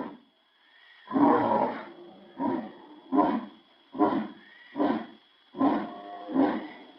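Lion roar sound effect, lowered in pitch: one long roar about a second in, followed by a run of six shorter grunting roars, each about 0.8 s apart.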